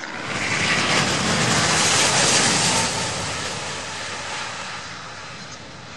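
Airbus A380's four Rolls-Royce Trent 900 turbofans at takeoff power, heard as a loud jet rush. It swells over the first two or three seconds, then slowly fades as the aircraft lifts away.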